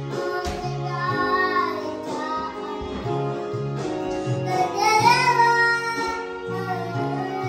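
A young child singing a Mizo song into a karaoke microphone over a backing track with guitar and bass, the voice sliding up in pitch and loudest about five seconds in.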